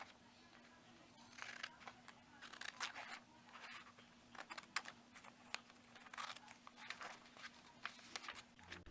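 Scissors snipping through printer paper, a faint run of irregular cuts and paper rustles.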